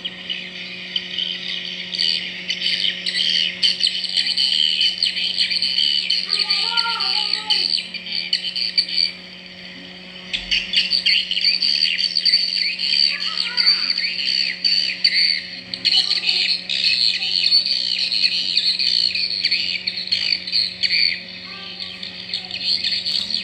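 A crowd of swiftlets chirping and twittering in dense, rapid, high calls, picked up live by a swiftlet-house sensor microphone. A steady low hum runs underneath, and the chirping drops away briefly about nine seconds in before resuming.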